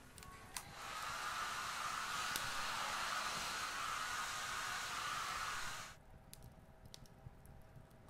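Hair dryer blowing steadily, starting about half a second in and cutting off suddenly about six seconds in.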